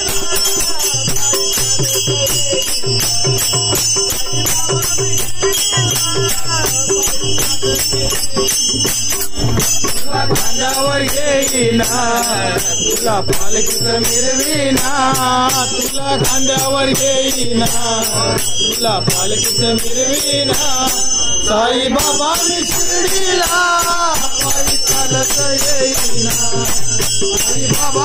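Group of men singing a Marathi devotional bhajan, accompanied by small brass hand cymbals struck in a fast, steady beat. The singing comes in strongly about ten seconds in.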